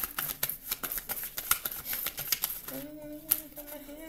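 Tarot cards being shuffled by hand, a quick run of soft card flicks and slaps. From about three seconds in, a held, hummed voice tone sounds under it.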